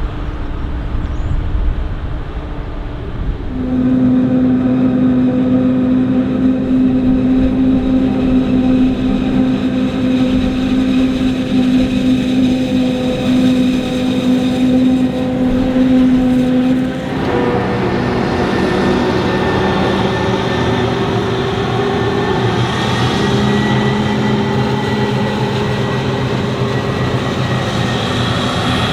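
Heavy diesel farm machinery running steadily under load, with a strong droning tone. The sound changes abruptly a few seconds in and again a little past halfway.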